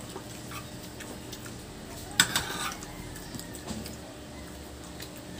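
Quiet eating at a table: scattered light clicks of a spoon and fingers on stainless steel plates, with one sharper clink about two seconds in.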